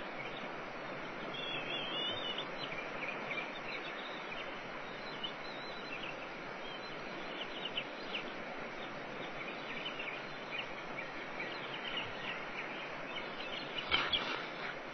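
High, thin chirping calls over a steady background hiss, typical of a bald eagle nestling begging while it is fed. About fourteen seconds in comes a short, louder burst of heavy wingbeats as the adult bald eagle takes off from the nest.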